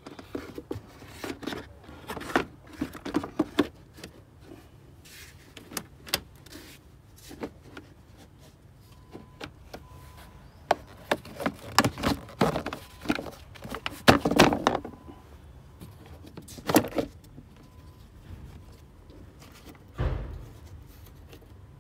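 Irregular clicks, knocks and rattles of parts and tools being handled, busiest a little past the middle, with a dull thump near the end.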